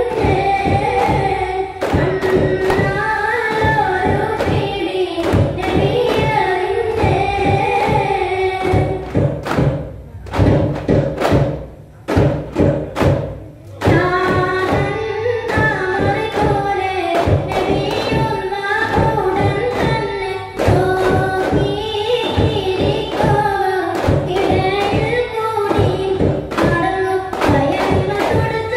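Daff frame drums beaten in a steady rhythm under group singing of a song. About ten seconds in the singing breaks off for a few seconds, leaving only the drum strokes, then the song comes back with the drums.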